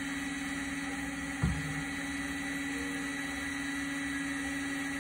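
Steady machine hum with a constant low tone and a fainter high tone, and one short knock about one and a half seconds in.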